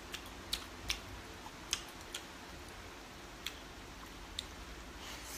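A few faint, scattered clicks of chopsticks against a plate as food is picked up, over quiet room tone.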